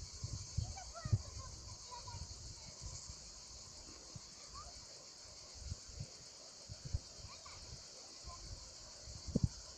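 A steady, high insect chorus with a few faint short chirps. Occasional low thumps are scattered through it, the loudest about a second in and near the end.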